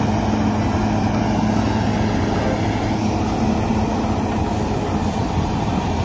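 Heavy diesel engines of a Komatsu excavator and a Komatsu HD465 haul truck running steadily, with an even low hum.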